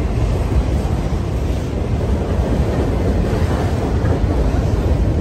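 Freight train of autorack cars rolling past close by: a steady, loud rumble of wheels on rail, with wind buffeting the microphone.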